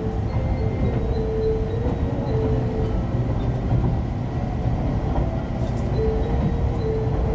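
A train running at speed, heard from inside a passenger car: a steady low rumble and rush of wheels and air.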